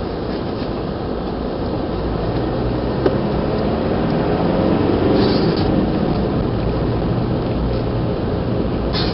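Car engine and road noise heard from inside the cabin while driving, a steady low drone that grows a little louder about halfway through, with a brief knock about three seconds in.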